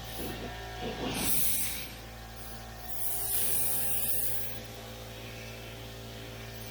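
Compressed-air paint spray gun spraying primer in two hissing bursts, one about a second in and one about three seconds in, each lasting a second or so, over a steady low hum.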